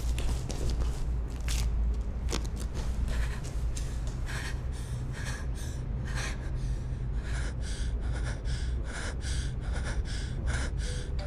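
A woman breathing hard: rapid, noisy breaths, two to three a second, from about four seconds in, over a steady low rumble. A couple of high-heel taps on cobblestones come in the first few seconds.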